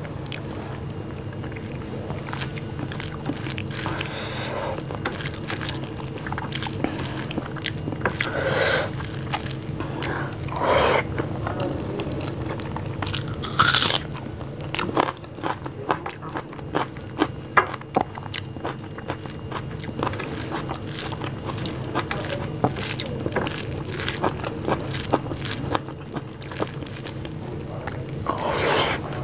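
Close-miked mouth sounds of a person eating rice mashed with bhorta by hand: wet chewing, lip smacks and small clicks, with a louder crunchy bite of raw red onion about halfway through.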